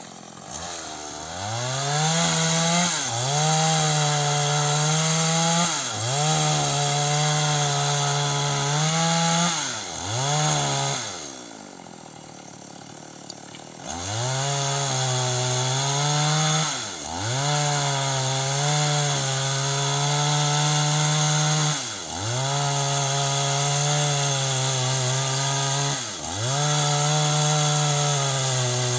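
Two-stroke chainsaw cutting into a rubber tree trunk at full throttle in spells of about three to five seconds, dropping briefly toward idle between them. About eleven seconds in it idles for about three seconds, then revs up and cuts again.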